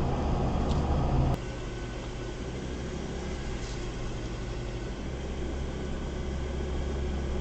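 Car running, heard from inside the cabin: engine and road noise while driving, then a sudden cut about a second in to a quieter, steady low engine hum.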